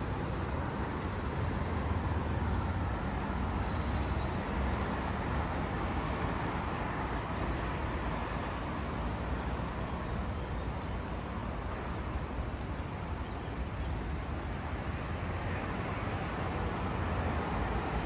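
Steady road traffic noise, an even roar of passing cars that does not let up.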